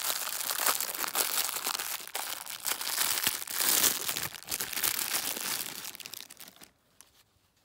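Clear plastic wrapping crinkling and rustling in the hands as it is pulled open from around a roll of lace. The crackle stops and it goes quiet near the end.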